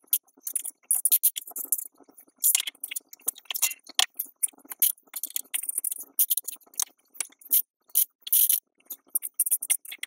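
Small plastic LEGO pieces clicking and rattling against each other and a clear plastic tray as they are picked through by hand, in irregular short clicks with a few brief rustling bursts.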